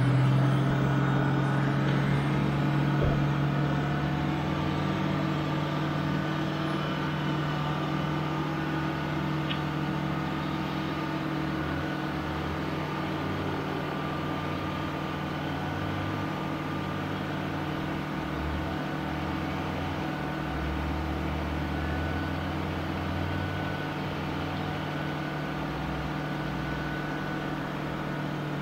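Winch motor running under load, pulling a stuck pickup out of deep mud: a steady whine at even pitch that winds down in pitch as it stops at the end.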